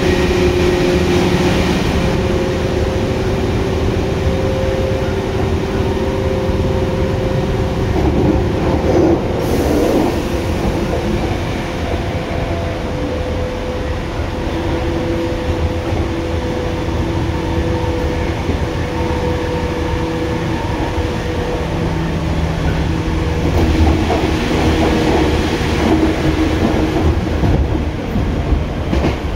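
Tokyu 8500 series electric train running, heard from inside the car over the air compressor: rumble of wheels on track under a steady hum from the Hitachi traction motors, with a few held tones that fade in and out.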